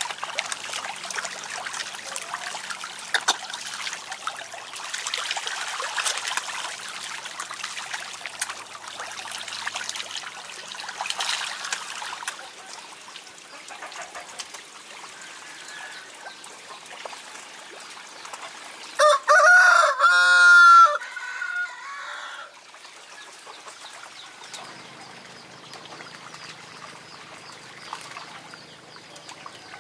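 Water splashing and trickling as snakehead fish thrash at the pond surface. About two-thirds of the way through, a rooster crows once, loudly, for about two seconds.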